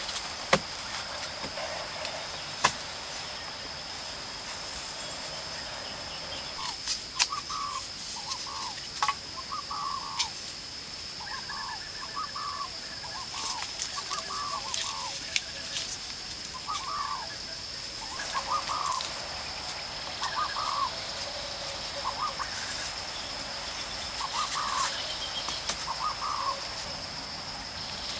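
Forest ambience: a steady high insect drone, joined about six seconds in by a second, higher insect buzz that stops near the end. Over it a bird gives short calls about once a second, with a few sharp taps from hands at work.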